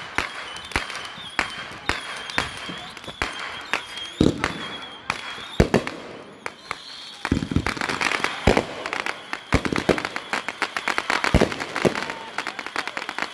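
Fireworks display: aerial shells launching and bursting in a string of sharp bangs and crackles. The bangs come much faster from about halfway through, running together into a nearly continuous barrage.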